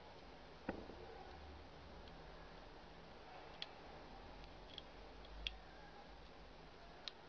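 Small plastic clicks and a soft knock from a glasses-type watch repair magnifier with LED lights being handled: one knock under a second in, then four light clicks spread over the rest, in near silence.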